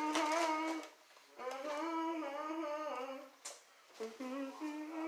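A person humming a tune wordlessly, in three phrases of held notes with short pauses between them.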